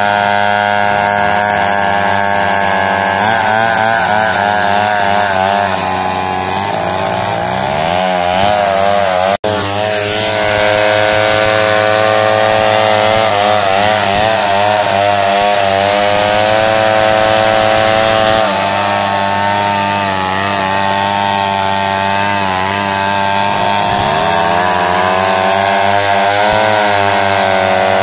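Stihl MS070 two-stroke chainsaw running under load, ripping along a coconut log to saw it into planks. The engine pitch wavers up and down as the chain works through the cut. The sound drops out for an instant about nine seconds in.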